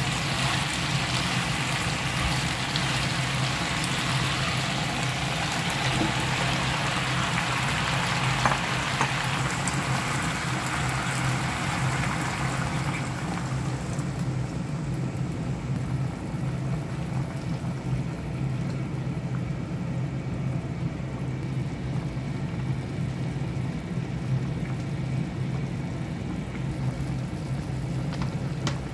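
Chicken and onion sizzling in a frying pan, a steady hiss that falls away about halfway through as water is poured in, leaving a quieter simmer over a steady low hum.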